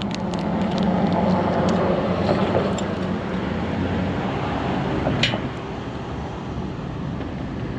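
Steady rumble of passing motor traffic, an engine hum with tyre-and-road hiss that eases off about five and a half seconds in. One short click about five seconds in.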